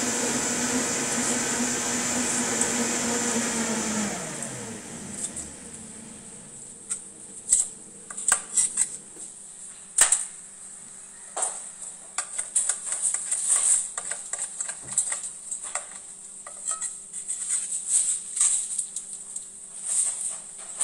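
A motor runs steadily and winds down, falling in pitch, about four seconds in. Then a knife crunches through crispy roast Peking duck and knocks on a wooden cutting board in irregular sharp cuts.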